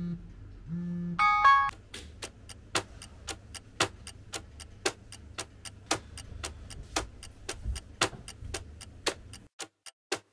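A smartphone alarm tone chimes a short melodic phrase about a second in. Then come fast, even ticks like a clock's, about four a second, which stop suddenly near the end.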